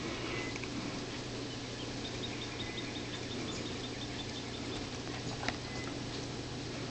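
Low steady hum, with a quick, evenly spaced run of faint high-pitched chirps about two seconds in and a single soft click near the end.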